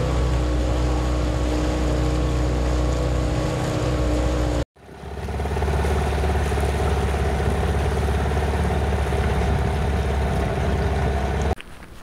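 Dinghy outboard motor running steadily at a constant speed. The sound breaks off sharply for a moment about halfway through and then resumes.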